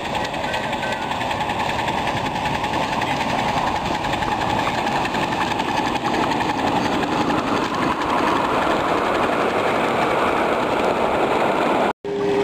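Ridable miniature live steam locomotive running along the track, its exhaust and running gear making a rapid, steady mechanical chuffing that grows louder over the last few seconds.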